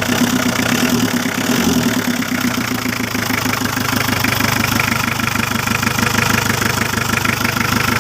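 Mitsubishi L300 engine idling steadily, with an even, rhythmic knocking clatter.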